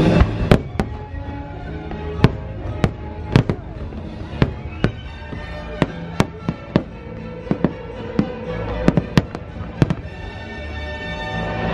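Fireworks shells bursting in about twenty sharp, unevenly spaced bangs, over show music played through loudspeakers.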